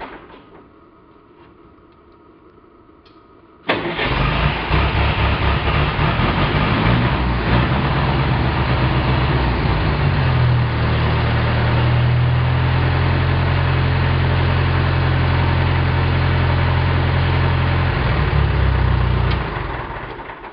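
Gas engine of a Davey MC1A high-pressure compressor unit, started on choke with the compressor disengaged. It bursts into life suddenly about four seconds in and runs unevenly at first. From about ten seconds it settles into a steady run, then fades away near the end.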